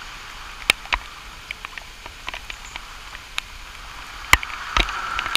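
Rain falling: a steady hiss with scattered sharp ticks.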